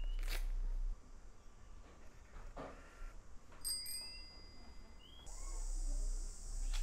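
Outdoor garden ambience: a few short rising bird chirps and a brief bright bell-like ding a few seconds in. From about five seconds in, a steady high buzz of insects sets in.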